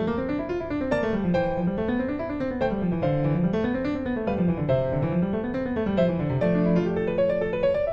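Background piano music: runs of notes rising and falling in waves about a second and a half long, settling on a held chord near the end.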